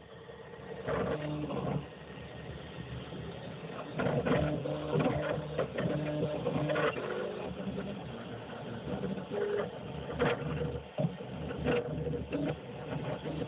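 Craftbot+ 3D printer's stepper motors whirring in short tones that jump in pitch every fraction of a second as the print head darts through its moves, over a steady cooling-fan hiss.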